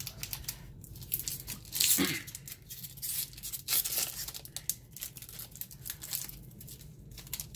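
Foil wrapper of a Magic: The Gathering booster pack being torn and crinkled: a run of irregular crackles, the loudest about two seconds in.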